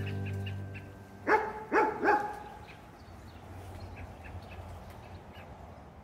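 Three short, loud animal calls in quick succession about a second and a half in, over faint, repeated high chirps.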